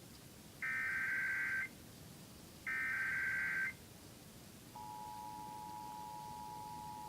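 Emergency Alert System SAME header: two bursts of screeching digital data tones, each about a second long, the last two of the header's three repeats. About two-thirds of the way through, the steady two-tone EAS attention signal starts and holds.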